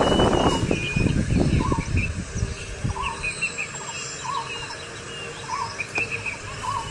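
Wild birds calling: one repeats a short call about once a second, with higher chirps around it. Low rustling noise fades out in the first second or so.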